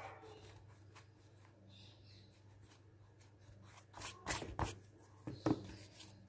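Faint rubbing and scratching of drawing on paper, then hands handling the sheet close to the microphone: a cluster of loud bumps and paper rustles about four seconds in and a sharper knock about five and a half seconds in.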